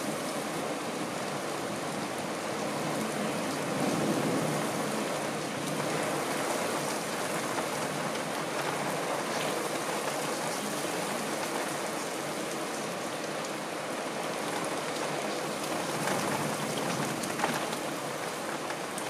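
Rain falling steadily in a thunderstorm.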